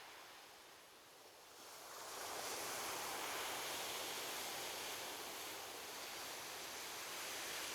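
Ocean surf: a wave washes in, the sound dipping briefly and then swelling about two seconds in and holding as the water breaks and spreads up the shore.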